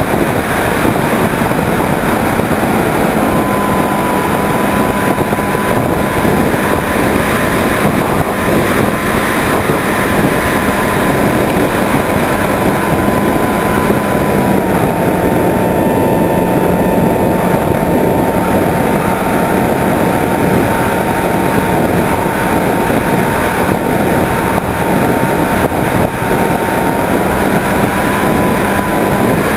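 Onboard sound of a Skyhunter 1.8 m RC plane in flight: steady, loud wind rush over the camera with the thin whine of its electric motor and propeller. The whine starts a few seconds in, drops slightly in pitch about halfway through and rises again near the end as the throttle changes.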